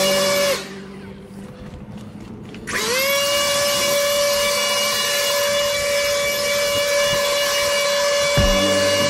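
A battery-powered handheld yard tool's motor runs at full speed with a steady high whine. It cuts off about half a second in, and after about two seconds it spins back up with a rising whine and runs steadily again.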